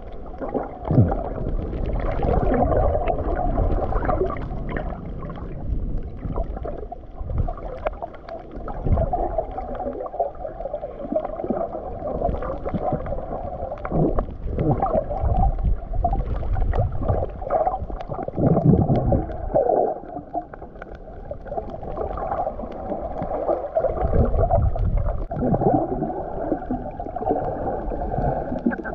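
Muffled water sound heard through a submerged GoPro camera: water swishing and gurgling around it in irregular surges as the swimmer moves, with now and then a brief knock.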